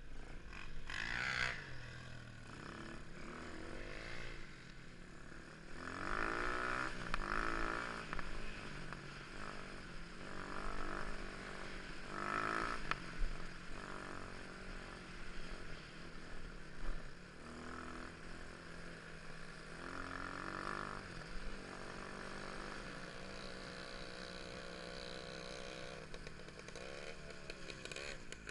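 Motorcycle engines revving, the pitch climbing and dropping many times, with louder surges about 6, 12 and 20 seconds in, heard through a poor-quality recording.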